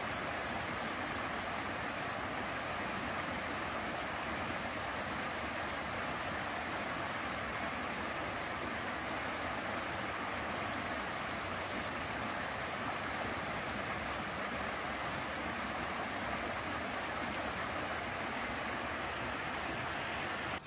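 Water of a shallow rocky creek flowing over stones and a small cascade, a steady rushing.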